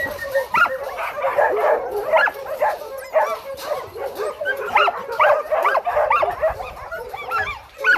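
Several dogs barking and yipping at once in a dense, overlapping chorus.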